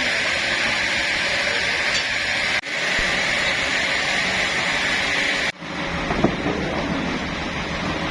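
Sawmill machinery running steadily with a continuous mechanical hiss and hum. The sound cuts abruptly twice, about two and a half and five and a half seconds in. After the second cut a lower, different machine sound follows, with a sharp knock.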